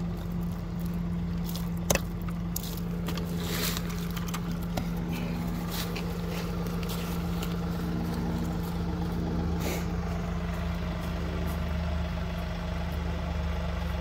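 John Deere compact tractor engine idling steadily, with scattered clicks and knocks of a plastic bucket and its lid being handled, the sharpest knock about two seconds in.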